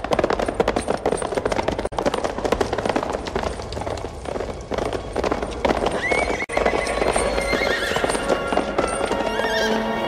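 Horses' hooves galloping in a rapid clatter, with film music over them, and a horse whinnying about six seconds in.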